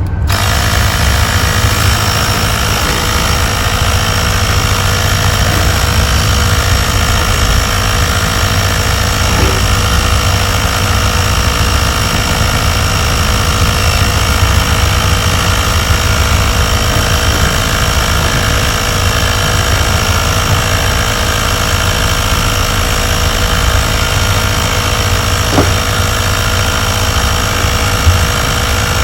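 Sun Joe 24V cordless air compressor switching on and running steadily with a loud, even hum, pumping air into a new ATV tire whose bead is not yet seated on the rim.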